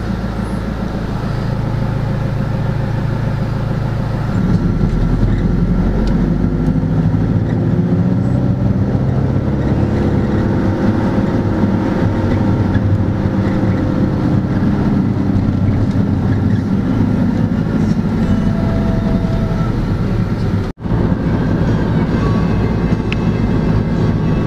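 Engine and road noise inside a moving vehicle's cabin, the engine note rising and then falling as the vehicle drives on. The sound cuts out for an instant about 21 seconds in.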